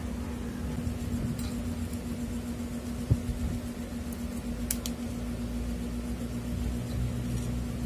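Steady low room hum, with one low thump about three seconds in and two quick sharp clicks a moment later as small plastic fingerboard wheels and their packet are handled on a table.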